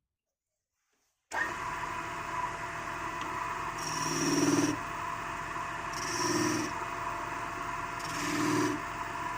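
Wood lathe running, its sound coming in abruptly about a second in. A turning tool rubs against the spinning wood in three louder swells about two seconds apart.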